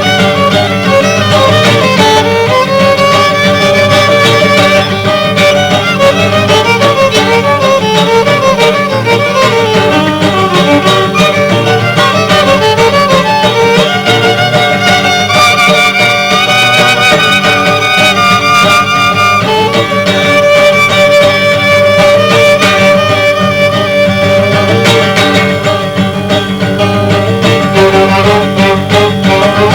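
Violin and guitar duo playing. The violin carries the melody in long held notes with vibrato over the guitar's accompaniment.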